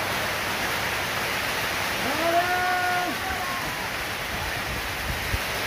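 Heavy rain falling steadily. About two seconds in, a brief held tone sounds over it for a little over a second.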